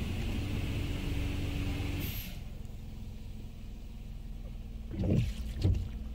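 Water spray from the DDI Robowash touchless car wash drumming on the car, heard from inside the cabin, cutting off about two seconds in. A low steady hum follows, with two short thumps close together near the end.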